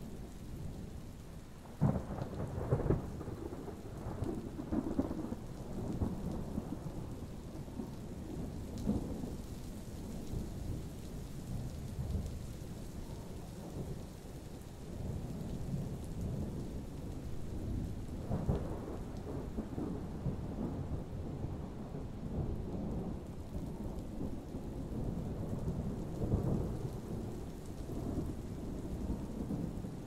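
Thunderstorm: thunder rumbling again and again over steady rain. The loudest claps come about two and three seconds in, with another near eighteen seconds.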